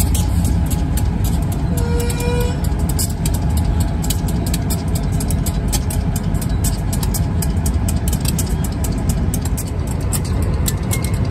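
Union Pacific diesel locomotives rolling slowly past up close: a steady low engine rumble with rapid clicking from the wheels on the rails. A brief high tone sounds about two seconds in.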